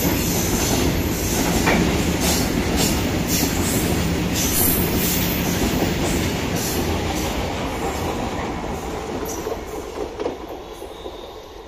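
Freight train of railway tank wagons rolling past, its wheels clacking over the rail joints. The sound fades away as the brake van at the tail of the train passes and recedes down the line.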